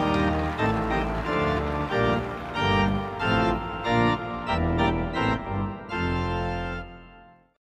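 Background music of held keyboard chords that change about every half second over low bass notes, fading out near the end.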